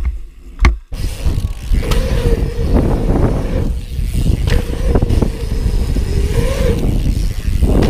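Mountain bike ridden on concrete skatepark bowls, its tyres rolling with a steady rushing noise and a few sharp knocks from the bike. For about the first second it is on a dirt trail, with a couple of clicks, before the noise jumps up.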